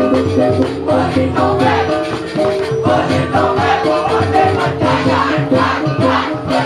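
Balinese gamelan ensemble playing: metal keyed instruments hold steady pitched notes over dense, fast percussion strikes.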